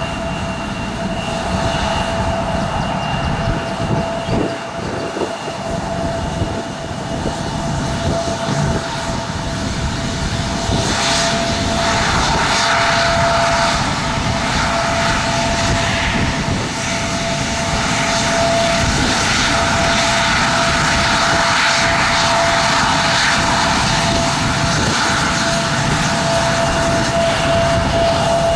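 Airliner engines running with a steady high whine over a broad rushing noise, slowly growing louder.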